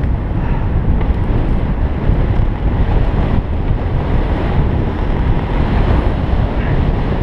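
Wind buffeting the microphone of a camera mounted on a moving road bicycle: a loud, steady, low rush.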